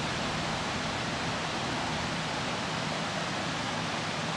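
Steady, even background hiss with no distinct event.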